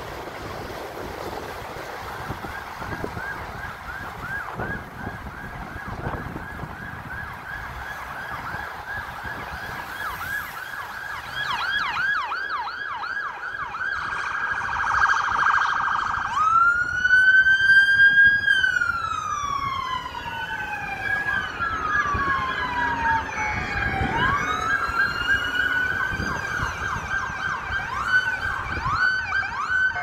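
Police siren on the yelp setting, a fast warble, growing louder as it approaches. A little past halfway it switches to long, slow wails rising and falling in pitch, which are the loudest part, then goes back to the fast yelp near the end.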